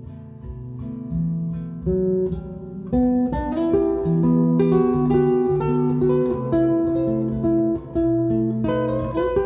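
Acoustic guitar music played back through a vintage Marantz 2275 amplifier. Single plucked notes give way about three seconds in to fuller, louder playing.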